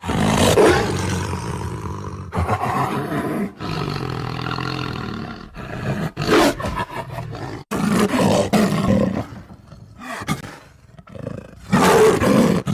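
Tiger roaring: a string of loud roars, seven or so, several of them starting or cutting off abruptly like spliced sound-effect recordings.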